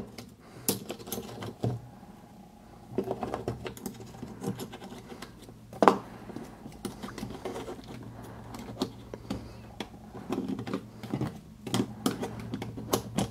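Light clicks and small scrapes of a thin metal tool and small parts in an ISSC MK22 rifle's trigger group, as the hammer spring and its brass washer are worked into place. There is a sharper click about six seconds in and a quicker run of clicks near the end.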